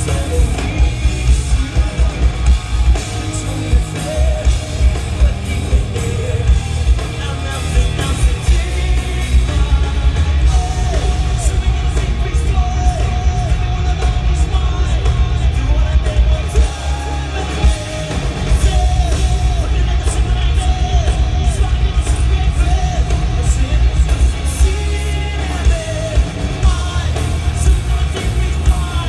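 A hard rock band playing live: a lead singer belting over distorted electric guitars, bass and a pounding drumbeat, heard from the audience in a large hall.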